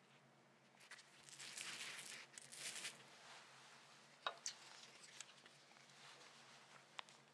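Faint rustling and soft handling sounds from hands holding a soft red velvet sponge shell, louder for about two seconds near the start. A few light sharp ticks follow, the strongest about four seconds in and another near the end.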